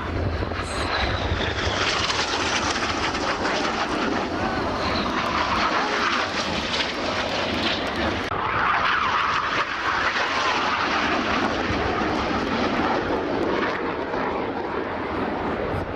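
Jet engine noise from Red Arrows BAE Hawk T1 jets, Adour turbofans, flying display passes. A continuous rush of jet noise whose pitch sweeps slowly up and down as the aircraft pass.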